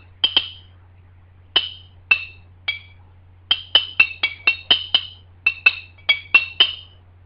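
A spoon tapping Shiner beer bottles makes short glass clinks, each ringing briefly at a high pitch, with the pitch shifting between two notes. The strikes come in an uneven rhythm, about seventeen in all, with a quick run of them around the middle.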